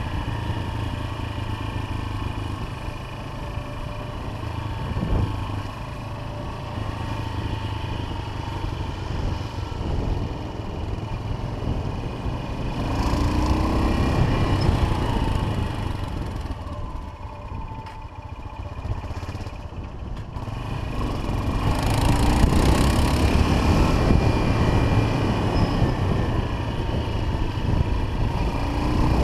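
Yamaha XT500's single-cylinder four-stroke engine running under way, heard on board. The throttle opens twice, the pitch rising about halfway through and again in the last third, with a quieter, off-throttle spell between.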